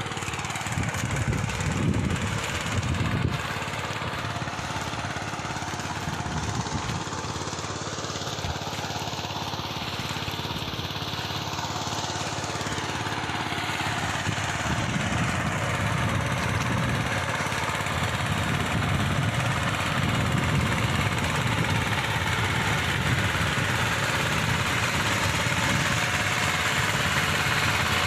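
Engine of a motorised farm plough running steadily, a little louder in the second half.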